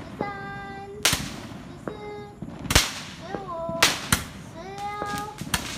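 Fireworks going off: sharp bangs come in quick succession, about one or two a second, and several follow a short whistle that ends in a bang.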